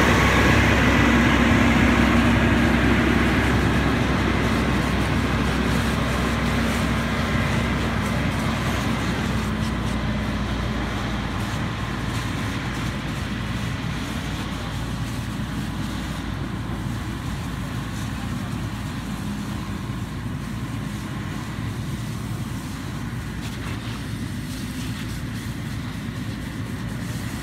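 Fire engine running steadily with its pump engaged, a constant engine drone with a faint steady whine, fading gradually.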